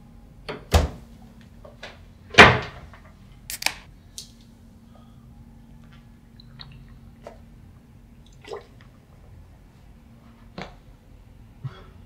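Scattered short knocks and clicks of handling and movement in a small room, the loudest a sharp knock about two and a half seconds in, with another strong one just before the first second.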